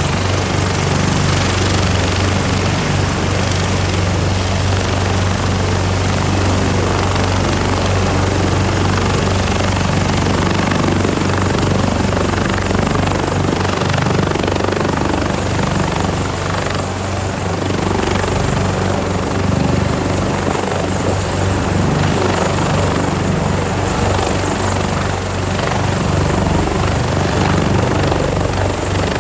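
AgustaWestland AW189 search-and-rescue helicopter running on the ground with its rotor turning: a loud, steady low drone from the rotor and a thin, steady high whine from the turbines. Near the end it lifts off into a hover.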